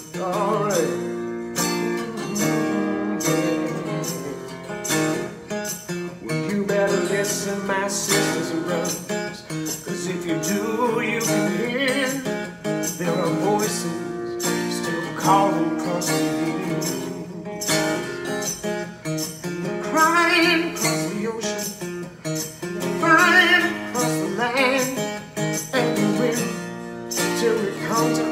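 Guitar chords played under a man's singing voice: a soul song performed by a guitar-and-vocal duo.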